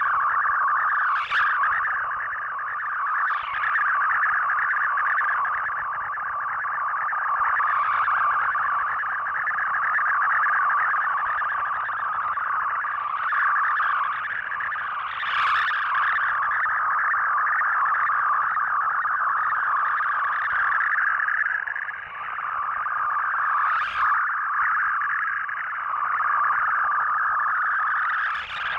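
Shortwave digital text-mode data broadcast heard through a radio receiver: a dense, continuous warble of rapidly shifting data tones held in a narrow middle pitch band over background hiss. Several sharp static crackles cut in, the strongest about 15 and 24 seconds in.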